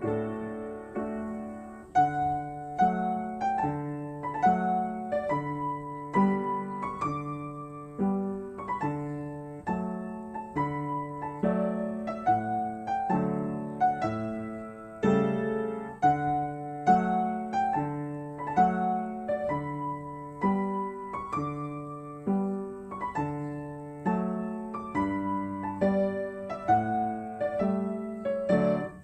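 Piano music with a steady beat, chords struck about once a second under a moving melody.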